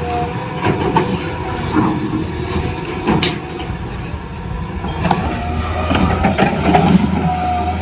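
Small electric motors of a toy RC excavator running, with scattered sharp clicks and a constant low hum.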